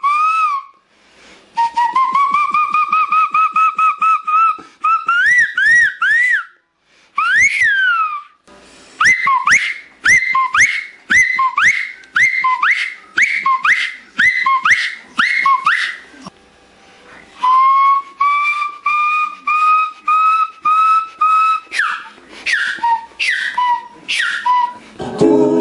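A man whistling through his hands held at his lips: a clear, warbling whistle that slides up and down, then breaks into a long run of short swooping notes, with a few brief pauses.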